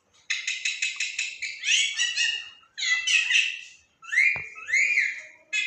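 Pet parrot calling: a quick run of short chirps, then several squawky calls that rise and fall in pitch. There is one brief knock a little past the middle.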